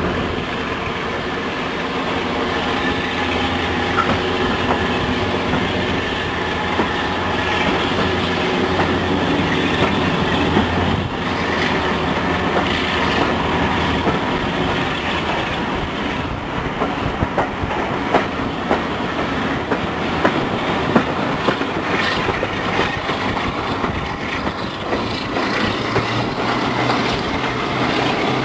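Moving diesel-hauled passenger train heard from an open carriage window: the locomotive's engine works steadily under load, and from about halfway the wheels clatter more sharply over rail joints.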